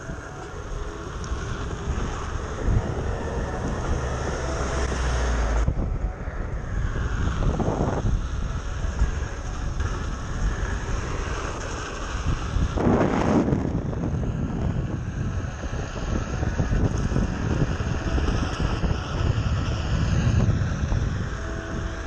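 Wind rushing over the microphone and road rumble from a Onewheel XR electric board rolling fast on asphalt, a steady loud noise that shifts abruptly a couple of times.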